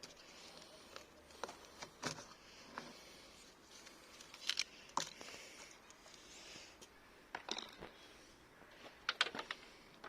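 Irregular light clicks and taps, some in quick clusters, from handling and working the small plastic parts of a car door mirror mechanism.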